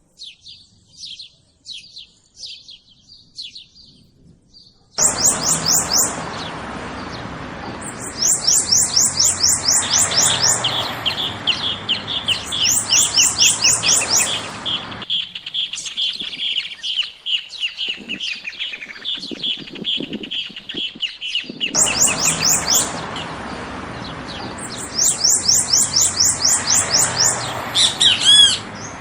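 Several songbirds singing. Scattered high chirps at first; then, about five seconds in, loud bursts of very rapid, high repeated notes alternate with a long run of lower whistled notes, over a steady background noise that fades out for several seconds in the middle and comes back.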